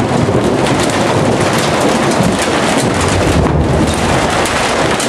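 Hail pelting a roof, a parked car and the ground: a loud, dense, steady clatter of countless small hits, with a low rumble underneath.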